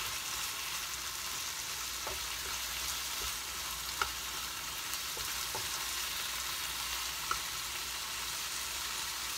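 Broccoli sizzling steadily in a frying pan as its moisture cooks off, stir-fried with chopsticks. A few sharp clicks come as the chopsticks knock the pan.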